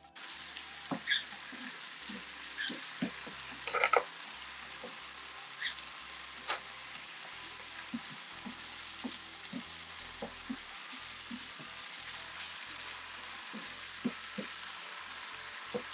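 Diced onion, garlic and green chillies sizzling in hot oil in a frying pan, with a steady hiss. A wooden spatula taps and scrapes against the pan as they are stirred, the sharpest taps about four and six and a half seconds in.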